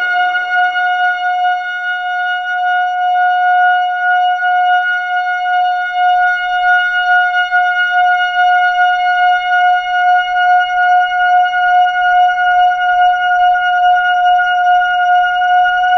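Trumpet played through a Strymon Timeline delay pedal: one long high note held steady with a slight pulsing, while the echoes of earlier lower notes die away in the first couple of seconds.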